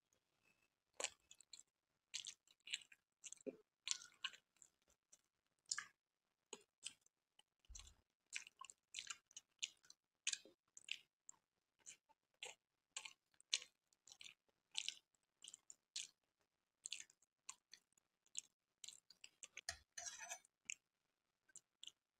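Close-up chewing of soft, syrup-soaked gulab jamun: a steady run of short, wet mouth clicks and smacks, with a denser flurry near the end.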